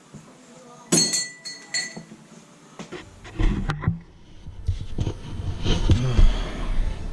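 A sharp clink of glass, ringing briefly, about a second in, followed by a couple of lighter clinks. From about halfway a louder low rumbling, shuffling noise sets in.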